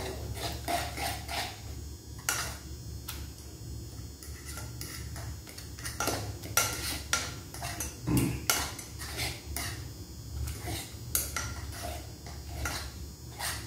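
A utensil clinking, tapping and scraping against cookware in irregular short knocks as cooked fried noodles with cheese are handled, over a steady low hum.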